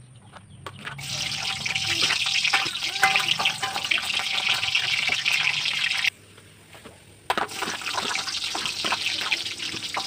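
Sliced garlic sizzling in hot cooking oil in a metal wok, starting about a second in as it is tipped into the oil, with clicks and scrapes of a metal spatula stirring it. The sizzle breaks off abruptly for about a second around six seconds in, then resumes.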